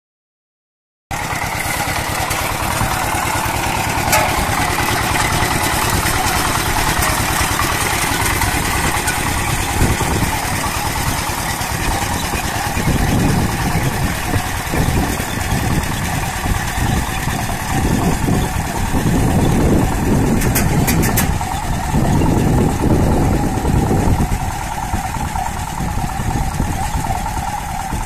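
Engine of a two-wheel walk-behind tractor running steadily under load, pulling a single-row potato harvester through the soil; the sound starts abruptly about a second in.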